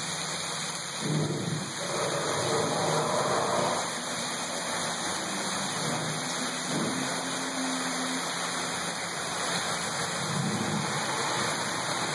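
Steady rushing water, like a waterfall or water pouring along a boat-ride channel, a constant hiss-and-splash with no breaks. A brief pitched sound rises over it about two seconds in.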